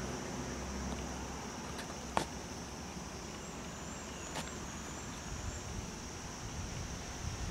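A vehicle engine idling, which stops about a second in, leaving a steady high insect drone with two sharp clicks.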